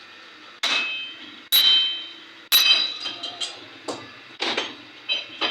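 Hammer blows on metal car parts: three loud ringing strikes about a second apart, then a quicker run of lighter knocks.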